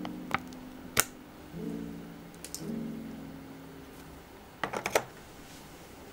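Sharp plastic clicks and taps from a small plastic gouache jelly cup being handled and emptied into a plastic palette tray: single clicks about a third of a second and a second in, and a quick cluster of clicks near the end. Soft background music notes play under them.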